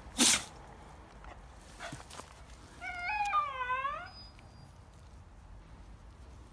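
Hokkaido dog whining in a drawn-out, wavering call of about a second, its pitch stepping up and then dipping down, a few seconds in. Near the start, a short loud burst of noise.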